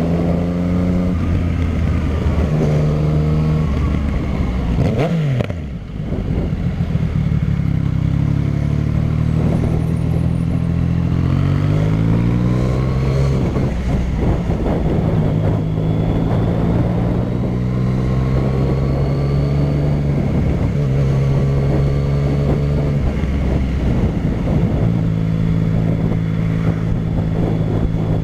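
Yamaha MT-09's three-cylinder engine running through a Dogster short-tip aftermarket exhaust at changing revs. The engine note holds steady for stretches and glides up and down between them, with a quick fall in revs about five seconds in.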